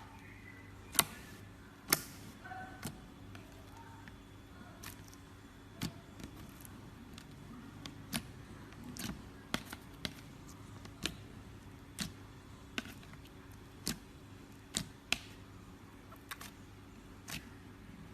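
Slime being pressed and worked by hand, giving sharp popping clicks at an uneven pace of about one a second, over a steady low hum.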